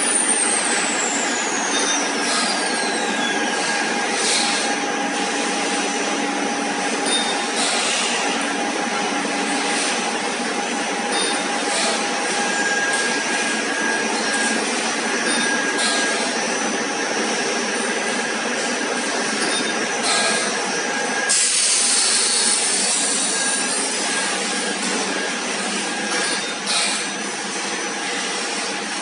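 Stainless-steel pipe-making machine (tube mill for vacuum bottle tubing) running: a steady, dense mechanical drone with a few held tones and scattered knocks. A whine falls in pitch over the first few seconds, and a loud high hiss lasts about five seconds about three-quarters of the way through.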